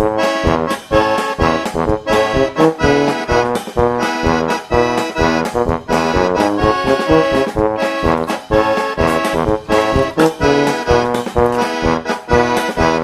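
Upbeat background music led by an accordion, with a quick, even beat.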